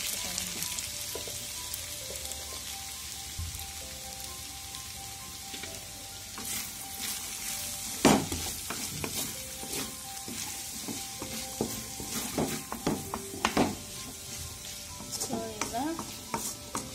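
Wheat flour noodles and vegetables sizzling as they are stir-fried in a metal pan, with a spatula scraping and knocking against the pan as they are tossed. The sharpest knock comes about eight seconds in, with a run of scrapes a few seconds later.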